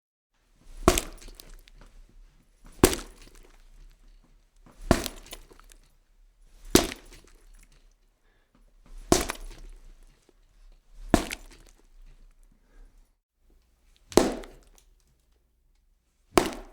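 Raw meat being struck: punches, then hits with a stick, as horror foley. Eight sharp, wet-sounding impacts, about one every two seconds, each dying away quickly.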